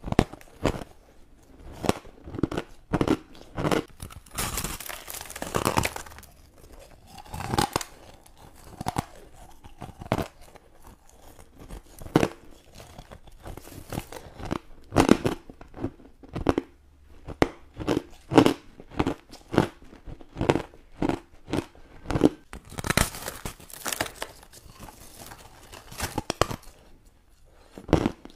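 Refrozen crushed ice being bitten and chewed: a run of sharp, crisp crunches, several a second, with two longer stretches of brittle crumbling.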